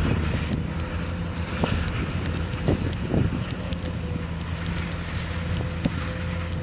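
Steady low diesel machinery hum of a moored cargo ship and its scrap-handling crane, with a thin steady tone above it and faint sharp clicks scattered throughout.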